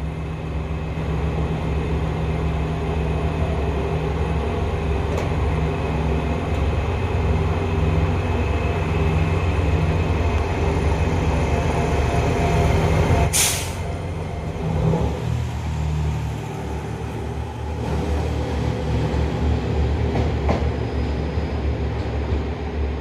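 Diesel railcar's engine running in a steady low drone, with a short, loud hiss of air about halfway through.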